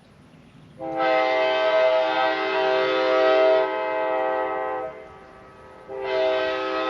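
Nathan K5LA five-chime air horn (an early-80s Big Bore build with bells 1, 2, 3A, 4A and 5) sounding its chord in two blasts. The first starts about a second in and lasts about four seconds. The second starts about six seconds in and is still going at the end.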